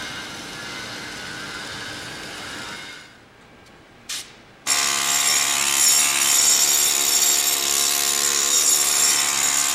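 Arc welding on a steel part for a Pelton turbine's needle servomotor: a steady hiss that stops about three seconds in. After a short pause with one brief burst, a louder, harsh and steady metalworking noise with a buzzing pitch starts just before five seconds in.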